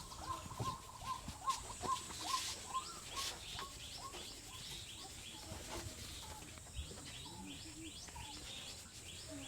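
Small birds chirping over and over: short chirps in the first few seconds, then a quick run of rising chirps repeating about three times a second. A few soft taps or knocks come in the first few seconds.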